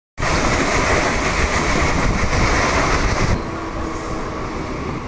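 Mumbai suburban local train running, heard from its open doorway: loud wheel and track noise while it runs right beside another train, dropping suddenly to a quieter steady running noise a little over three seconds in, once the other train is no longer alongside.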